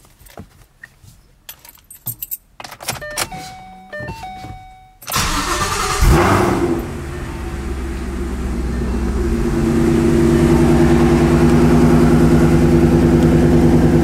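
Clicks and a few short electronic tones, then about five seconds in the 2014 Shelby GT500's supercharged 5.8-litre V8 cranks and fires with a brief rev flare. It settles into a steady idle that grows louder over the next few seconds, heard from inside the cabin. The exhaust runs through aftermarket ARH headers.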